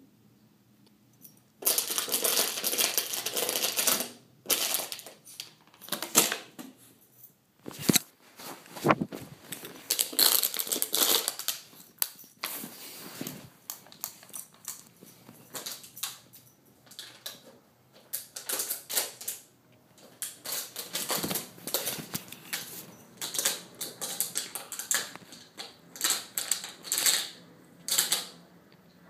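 Scuffling: irregular clicks, scratches and rustling as a blue nose pit bull puppy scrambles and play-attacks right at a handheld phone, which is being knocked about. There are a few louder stretches of rustle along the way.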